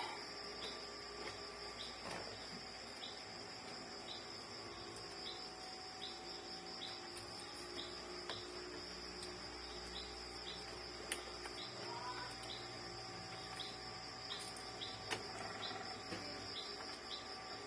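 Steady high insect drone with a short chirp repeating about every half second, typical of crickets, plus a few faint clicks and taps.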